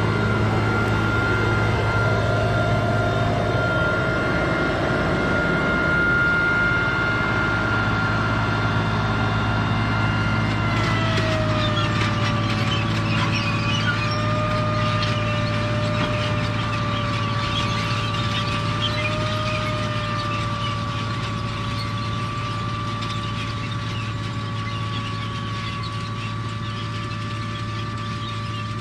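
Case IH 7120 tractor's six-cylinder diesel running steadily under load while planting, with a steady whine over the engine drone. About ten seconds in the whine drops slightly in pitch, a second, lower whine joins it, and a light crackle starts.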